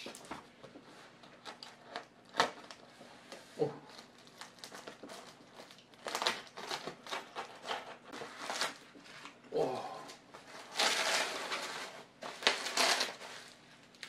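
Packing tape and paper being torn and peeled off the end of a cardboard rod shipping tube, with repeated crinkling, crumpling and ripping. The sounds come in short sharp bursts, then turn into longer, denser rustling stretches as the wrapping comes away and the rod's plastic packaging slides out of the tube.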